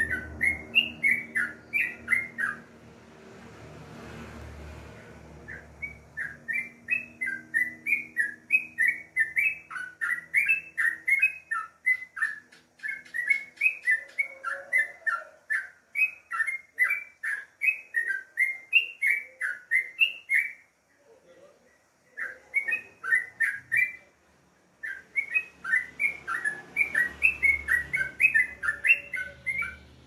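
Caged yellow-vented bulbul (trucukan) singing: runs of rapid, bubbly chirped notes in phrases of a few seconds, broken by short pauses, with a longer gap a few seconds in.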